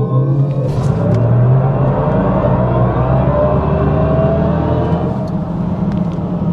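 Mercedes EQS 53 4Matic+ electric car accelerating, its synthetic drive sound from the cabin speakers rising steadily in pitch over tyre and road noise.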